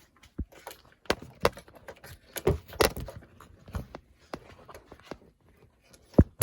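Hand tools and metal faucet parts being handled: an irregular series of sharp clicks, knocks and metallic clinks.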